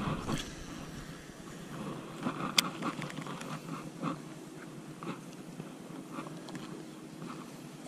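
Faint handling noise from a fishing rod and reel while a swimbait is cast and retrieved: a brief louder rustle with the cast at the start, then scattered light clicks and taps, one of them a sharp click about two and a half seconds in.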